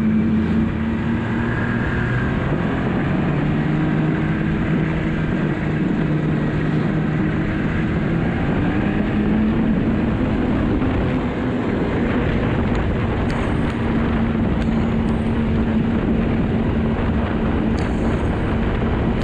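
Yamaha four-stroke three-cylinder snowmobile running at a steady trail speed, heard from the rider's seat. Its engine note drifts slightly up and down.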